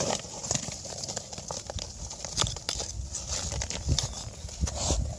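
Stones knocking and scraping as rocky ground is cleared and dug, in a run of irregular clicks and clatters.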